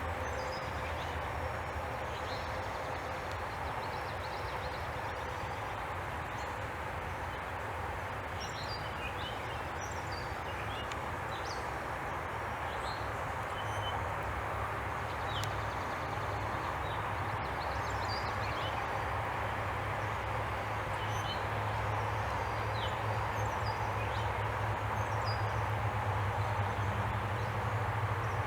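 Outdoor evening ambience: a steady low rumbling hum, like distant traffic or machinery, with many short, high bird chirps scattered throughout.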